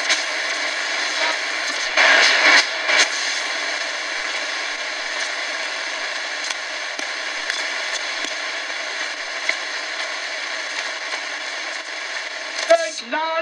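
Shortwave static and hiss from the KNSTAR RX-608ACW portable radio's speaker, with a few sharp crackles and pops about two to three seconds in. Near the end a voice from a station comes in.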